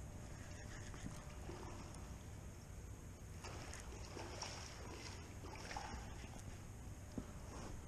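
Faint, steady low rumble of water and wind around a kayak on the water, with soft swishing swells a few seconds in.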